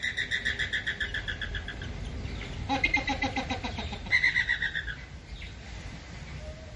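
A flock of flamingos calling: runs of rapid, repeated nasal honks, with a lower honk about three seconds in and another run of honking around four seconds, then quieter.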